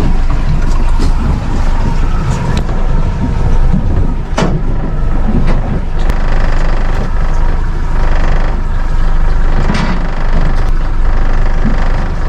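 A running engine with loud, steady rumbling noise, with a few sharp knocks about four and a half and ten seconds in.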